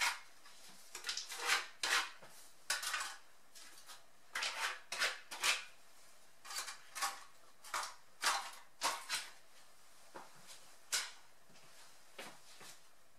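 A utensil scraping and knocking against containers in a run of short, unevenly spaced strokes that thin out near the end: goat cream cheese being scooped from its tubs into the Thermomix's stainless steel mixing bowl.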